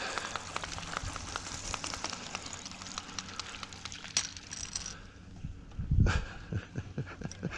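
Spinning reel being cranked with a fast run of small clicks as a small bass is reeled in. The fish splashes briefly about four seconds in, and there is a thump about six seconds in as it is lifted aboard.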